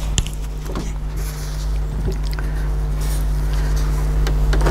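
A steady low mechanical hum, with soft rustling of a cloth towel and a few light clicks as a thermos lid is handled.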